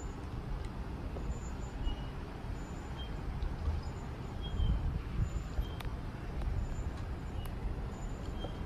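Outdoor street ambience: a steady low rumble that swells and dips, with faint short high chirps now and then.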